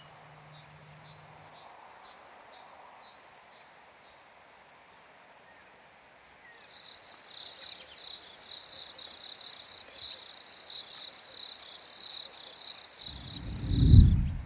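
Insects trilling in a high, rapidly pulsing tone, starting about halfway through. Near the end a loud low rumble swells up and dies away.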